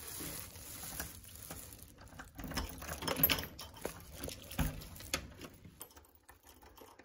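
Keys jingling on a key ring while a key is worked into and turned in a front-door deadbolt: a run of small irregular clicks and metallic rattles.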